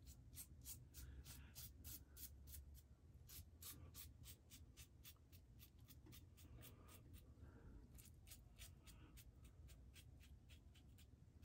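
Merkur 39c slant-bar safety razor scraping through lathered stubble on the upper lip in many short, quick strokes, faint.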